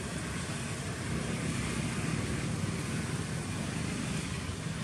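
Steady background noise with a low rumble, with no distinct event standing out.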